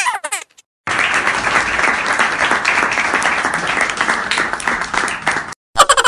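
Applause sound effect: a crowd clapping, starting suddenly about a second in and cutting off abruptly about four and a half seconds later.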